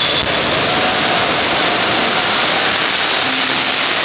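Jet engines of two jet-powered drag-racing trucks, a semi and a pickup, running at full power with afterburners lit: a loud, steady rushing noise.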